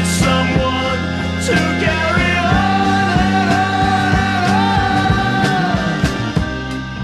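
Instrumental passage of a rock ballad played from the original vinyl record: a full band with a steady drum beat and bass under a sustained lead melody line that bends in pitch, held for a few seconds in the middle.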